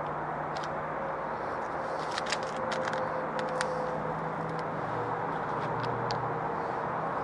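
A steady rushing noise with a low hum under it, and small light clicks and crinkles scattered through it as a small packet is handled by hand.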